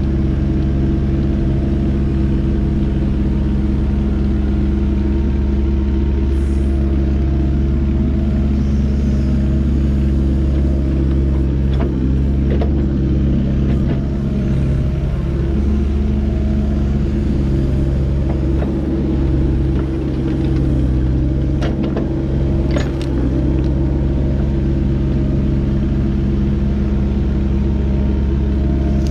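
A heavy machine's engine running steadily at working speed, with a few short sharp knocks partway through.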